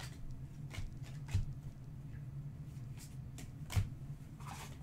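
Trading cards being handled: faint taps, clicks and rustles as a stack of cards is flipped through and set down, with two slightly louder knocks, over a steady low hum.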